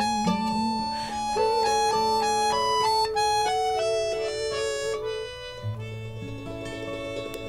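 Live acoustic folk music, the instrumental close of a song: a sustained melody line steps down in pitch over accompaniment and grows quieter after about five seconds.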